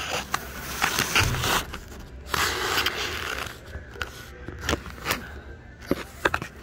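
Handling noise: scraping and rustling in two stretches, then a few sharp clicks in the second half.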